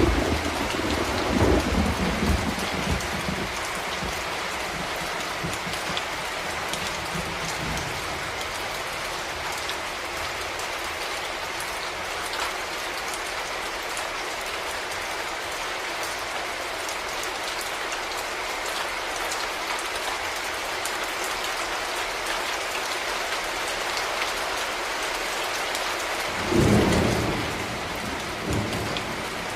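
Steady rain with thunder: a rumble at the start that dies away over several seconds, and another short rumble near the end.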